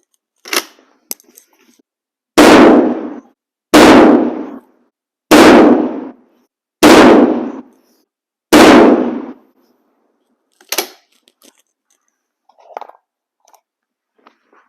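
Five rapid shots from a Swiss K-31 straight-pull rifle in 7.5x55mm Swiss, about a second and a half apart, each a loud crack with a short echo. A few light clicks come before the first shot and after the last.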